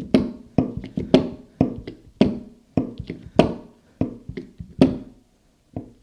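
Central Hydraulics hand-held hydraulic crimper being pumped by its handle: a run of sharp clacking strokes, about two a second, stopping about five seconds in. The ram is driving the dies closed to crimp a lug terminal onto a 6-gauge battery cable.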